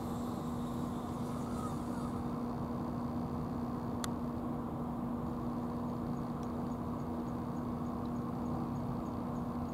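Steady low mechanical hum with a constant drone, unchanging throughout, and a single sharp click about four seconds in.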